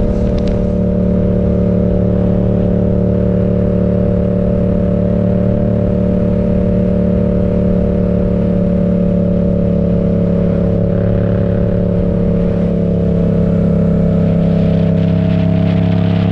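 Yamaha MT-07's parallel-twin engine running through an aftermarket M4 exhaust at a steady cruising engine speed. The pitch holds almost level, shifting slightly near the end.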